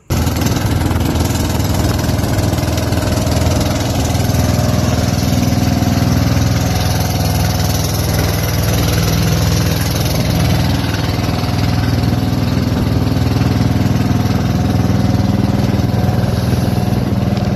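Engine of a small motorized outrigger fishing boat running steadily at a constant speed while under way.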